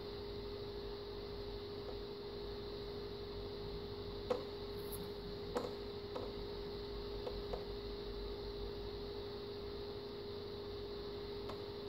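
Quiet room tone with a steady electrical hum and a few faint light taps.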